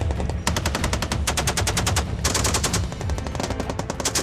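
A machine gun firing long bursts of rapid, evenly spaced shots, with a brief pause at the start and another about two seconds in.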